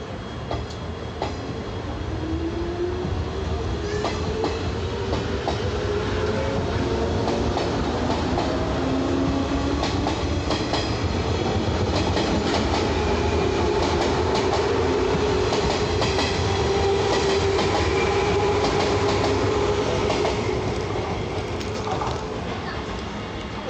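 Shinano Railway 115 series nine-car electric train pulling out and passing close by: the traction motors whine, rising in pitch as it accelerates, and the wheels clack over rail joints. It grows louder, holds through the middle and fades near the end as the last cars go by.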